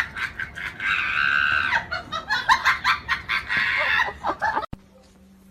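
A run of short, rapid animal calls, with a longer held call about a second in. It cuts off sharply near the end to a faint steady low hum.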